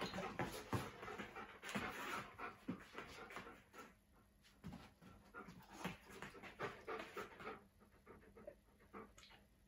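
Large black dog panting in quick, rapid breaths, thinning out and fading after about seven seconds.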